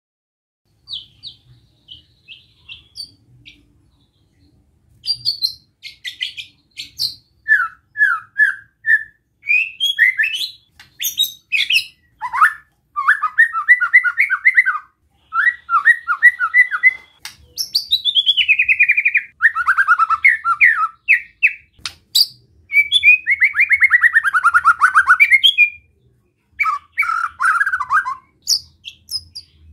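White-rumped shama singing. It starts with a few scattered soft high notes, then from about five seconds in gives a long run of loud, varied whistled phrases. Twice it breaks into fast rattling trills that fall in pitch, the relaxed 'besetan' phrases shama keepers use to stir other shamas into singing.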